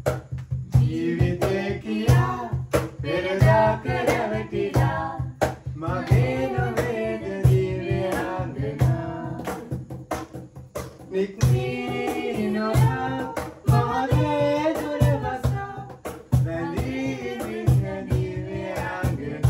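People singing together, a man's voice leading, over a steady percussion beat struck by hand.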